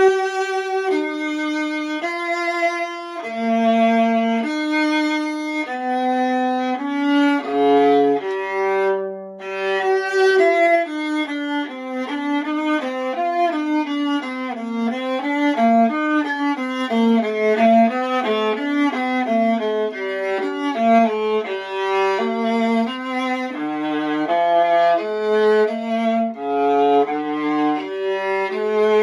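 Antique Mittenwald viola played solo with the bow: slow, held notes for the first ten seconds or so, then quicker running passages, going down to the low C string.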